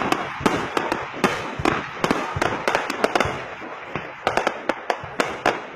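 Fireworks display: many sharp bangs and crackles, several a second in an irregular stream.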